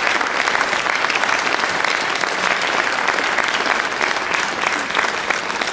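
Audience applauding, a dense and steady clapping that carries on without a break.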